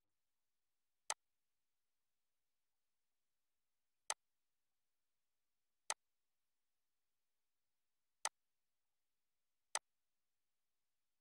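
Five single mouse clicks, each short and sharp, spaced one to three seconds apart, with dead silence between them.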